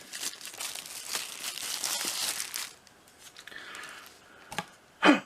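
Packaging crinkling and rustling as a small ultrasonic humidifier is pulled out of its box, then quieter handling with a couple of sharp clicks and a short loud sound near the end.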